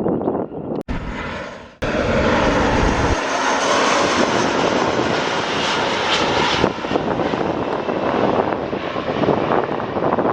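Jet airliner's engines running as it passes close by: a loud, steady rushing roar of jet noise. The sound cuts off and changes abruptly twice in the first two seconds.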